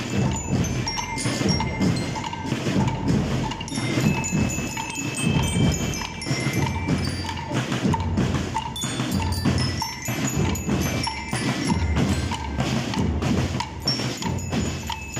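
Marching band of snare and bass drums with bell lyres playing as it marches: a steady, rhythmic drum beat under short, ringing high metal notes from the lyres.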